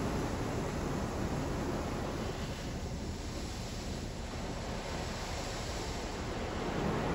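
Water jets of a Ryko SoftGloss MAXX 3 touch-free car wash spraying against the car's body and windows, heard from inside the cabin as a steady rushing hiss. It eases a little about halfway through and builds again near the end.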